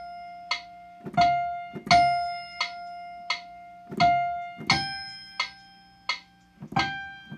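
Piano playing a single-note melody line, held notes alternating with short detached ones; about halfway through the melody steps up higher.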